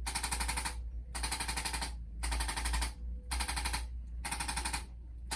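Handheld electric percussion instrument rapidly tapping in short bursts of about a second each, with brief pauses between, as it is worked over the patient's body during a chiropractic adjustment.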